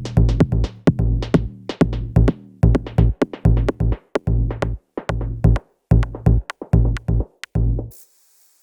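Electronic music with a drum-machine beat, stopping abruptly near the end.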